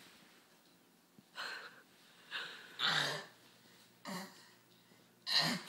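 Short breathy gasps and huffs from a person, four of them about a second apart, the longer ones with a little voice in them.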